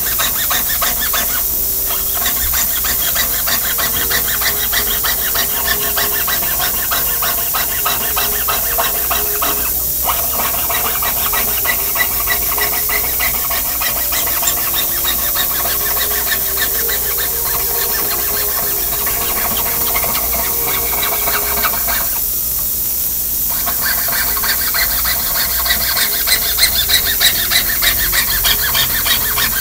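Jeweller's saw cutting through thin metal sheet by hand: quick, steady rasping back-and-forth strokes. The cutting pauses briefly about two seconds in, again around ten seconds, and for over a second around twenty-two seconds, and grows louder near the end.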